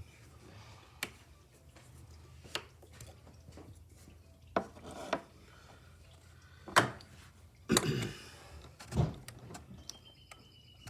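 Scattered sharp clicks and knocks, with brief scraping, of a new oil filter and its cap being handled and fitted back into the engine's oil filter housing.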